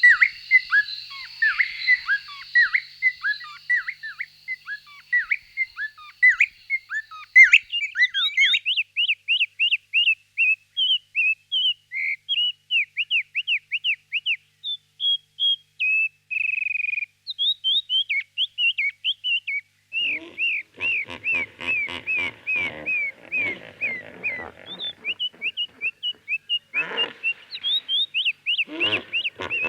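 A bird chirping in long, fast runs of short, sweeping whistled notes. In the last third a lower, rapid pulsing chatter joins in, in short spells.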